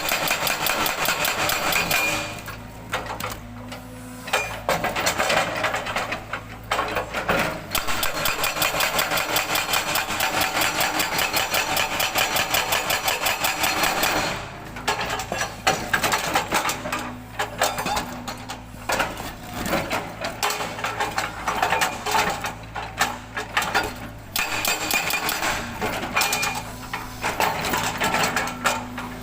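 Hydraulic breaker on a Cat 320 GC excavator hammering granodiorite rock in rapid blows, in long runs broken by short pauses in which the excavator's engine is heard running.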